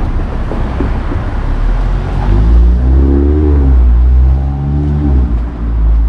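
A motor vehicle passing close in street traffic, its engine note rising and falling over a heavy low rumble from about two seconds in.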